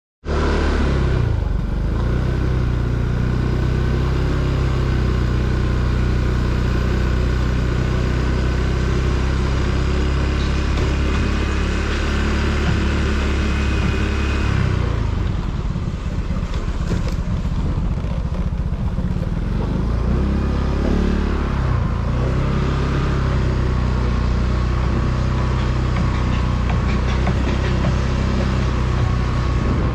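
A motor vehicle engine running steadily, its steady drone easing off and picking up again about halfway through and once more a few seconds later.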